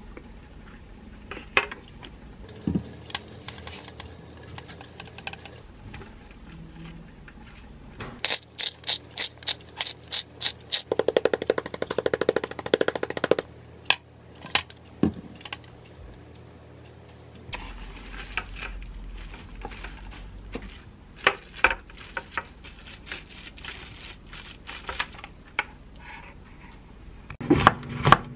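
Quiet food-prep handling sounds, with a run of rapid even clicks, about five a second, lasting about six seconds midway. Near the end a kitchen knife starts chopping an onion on a wooden cutting board: sharp, evenly spaced knocks.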